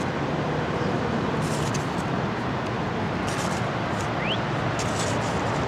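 Steady outdoor background noise, even and unbroken, with a few soft crackles and a short rising chirp about four seconds in.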